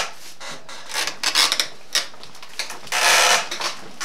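Runner stone of a traditional stone cider mill being pushed round its stone trough, grinding and scraping as it crushes fruit into pulp. The sound comes in irregular bursts, loudest about three seconds in.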